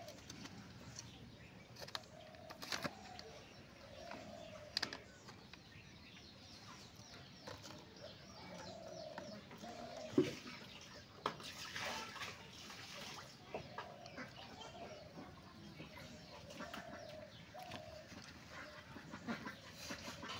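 A bird calling in short repeated notes in the background. A few sharp knocks break in as plastic cups are set down on concrete, the loudest about halfway through.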